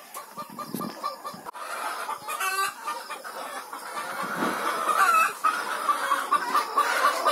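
Caged chickens clucking in a run of short repeated notes, louder in the second half, with one brief higher call about two and a half seconds in.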